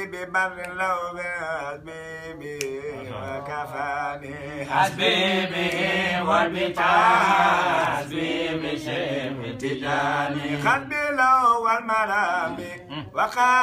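Unaccompanied men's voices chanting an Islamic devotional chant in long, melodic phrases with short breaks between them.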